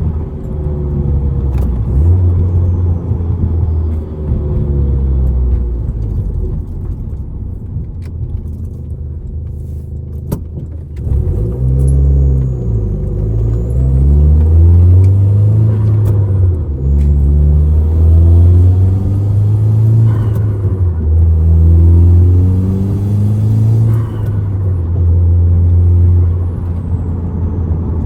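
Hyundai Genesis Coupe 2.0T's turbocharged four-cylinder engine heard on the move, its note climbing in pitch under acceleration and then dropping, over and over, with the louder pulls in the second half.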